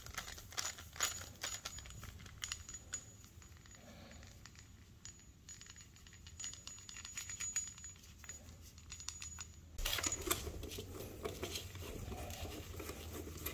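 Faint irregular clicks and handling rattles as a screwdriver tightens stainless-steel worm-gear hose clamps on a brass coupling. About ten seconds in the sound changes abruptly to a louder, steady noisy background with handling sounds.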